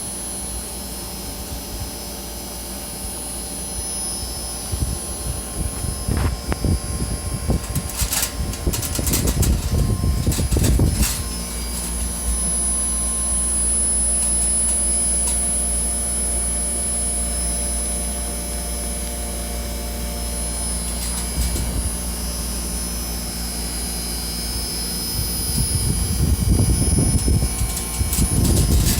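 Inverter air conditioner's outdoor unit, compressor and fan, running steadily: a low hum with a thin high whine over it. Gusty rumbling comes and goes about five to eleven seconds in and again near the end, with a couple of sharp clicks around eight and eleven seconds.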